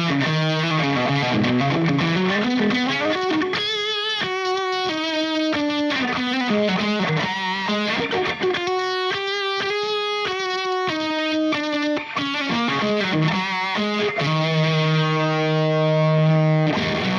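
Electric guitar played through the fuzz side of a Valco Bloodbuzz drive/fuzz pedal, all controls at noon: a nasty fuzz tone on a riff of single notes with bends and vibrato, ending on a long held note.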